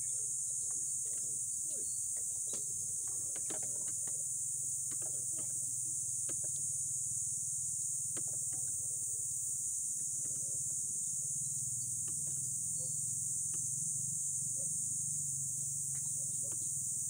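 Steady high-pitched insect chorus throughout, with scattered light clicks and taps from hands and tools working on a motorcycle's front wheel.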